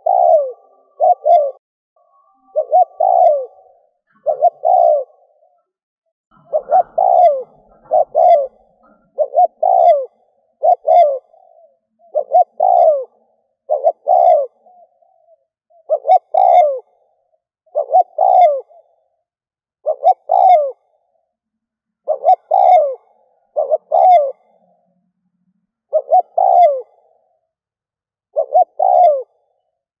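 Spotted dove (chim cu gáy) decoy bird cooing, a steady run of short phrases of two or three quick notes that fall in pitch, one phrase every second or two.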